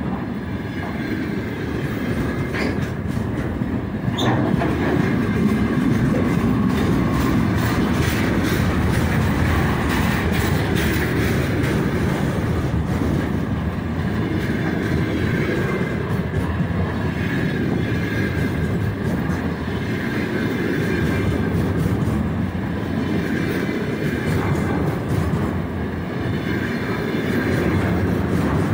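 Container flat wagons of a long freight train rolling past close by: a steady rumble and rush of steel wheels on the rails, with repeated sharp clicks as the wheels run over the track.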